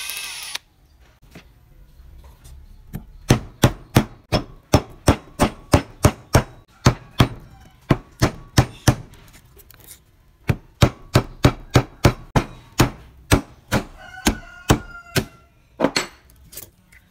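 Hammer blows on a wooden drift held against the inside of an electric motor's metal housing, knocking about three times a second in two runs of several seconds with a short pause between. Some blows in the second run ring metallically.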